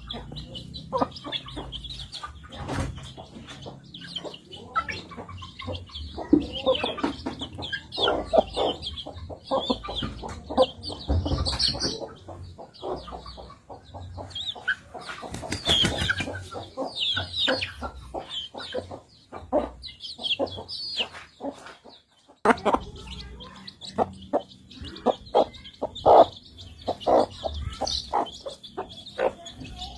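Chickens eating: many quick pecking taps at feed amid clucking, over a steady run of high chirping calls. The sound drops out briefly about two-thirds of the way through, then resumes.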